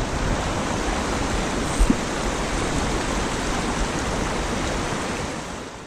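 Steady flow of a trout stream's water over riffles, with a brief knock about two seconds in; the sound fades out near the end.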